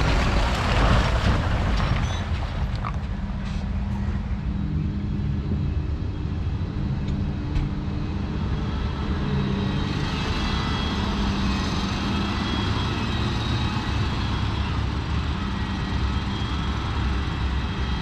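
Diesel engines of farm machinery running: a Massey Ferguson tractor pulling a Herron silage trailer passes close by in the first couple of seconds, loudest there, then the tractors and a Claas Jaguar forage harvester keep running steadily further off, with a faint high whine joining about halfway through.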